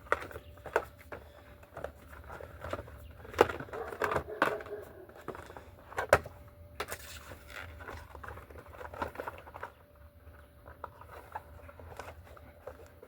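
Irregular clicks, knocks and rustling from handling a new bicycle tire, flexing and unfolding its rubber casing and bead. The two sharpest knocks come about three and a half and six seconds in.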